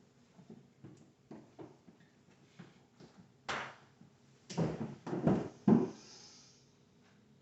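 Scattered light taps, then a short rush of noise and three heavy thuds in quick succession, the last the loudest, trailing off into a faint hiss.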